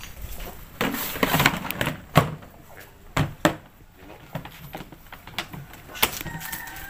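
Plastic storage box and its snap-on plastic lid being handled: a scraping rustle about a second in, then several sharp plastic knocks and clacks.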